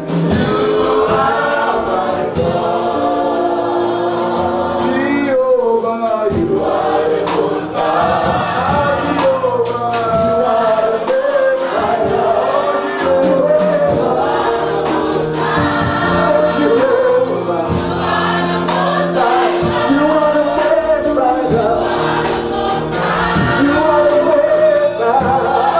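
Church congregation singing a gospel worship song together, phrase after phrase over held low notes.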